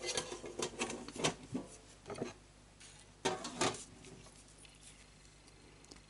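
Scattered light clicks, taps and rustles of hands handling a bundle of crocheted stamens on wire stems, mostly in the first four seconds and then nearly still.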